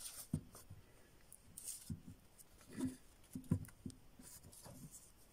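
Faint handling sounds of a hard plastic Schleich horse figurine: its hooves tapping and scraping on a textured mat as a hand turns it and sets it down, with a scatter of soft knocks and a few brief scrapes.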